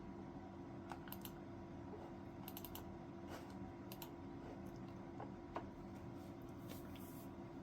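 Scattered light clicks, about a dozen at uneven intervals, over a steady low hum.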